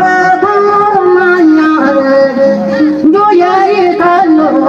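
Senufo woman singer singing, long held notes that slide from one pitch to the next with short breaks between phrases.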